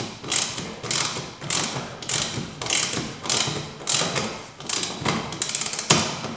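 Hand ratchet wrench worked back and forth overhead, tightening the screws of a rear diffuser into a car's bumper: a burst of ratchet clicks on each stroke, a little under two strokes a second.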